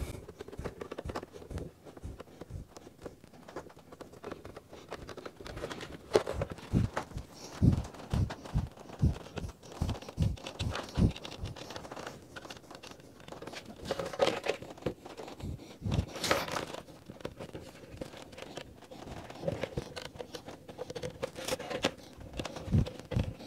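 Rubber glazing strip being pressed and worked around the edge of a pane of glass on a wooden workbench: rubbing and crinkling handling sounds, with a run of soft knocks about six to eleven seconds in.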